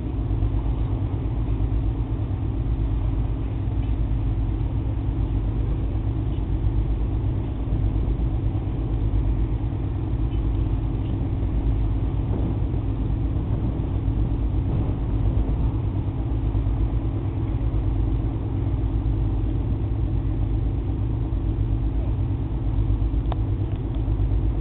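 Diesel engine of a river motor ship running steadily at the pier: a constant low, pulsing drone with a fixed hum.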